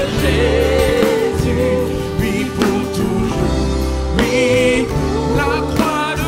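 Christian worship song: a singing voice with vibrato carrying a melody over long held low notes and chords.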